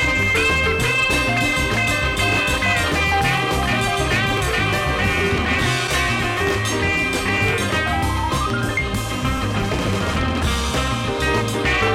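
Background music, with a rising pitch glide about eight seconds in.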